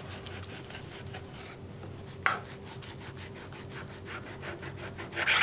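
Knife trimming fat and silver skin off a raw flank steak in rapid short strokes, the blade rasping through the meat and against a wooden cutting board. A sharp click a little past two seconds in, and a louder rasp near the end.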